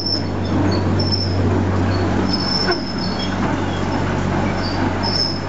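Replica Lartigue monorail locomotive running past close by: a steady engine hum, with short high wheel squeals from its running and guide wheels on the A-frame rail, heard several times.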